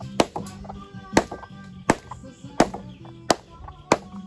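Hammer blows on the back of a knife blade, driving it through a cobia on a wooden plank: six sharp, evenly spaced strikes, about one every 0.7 s.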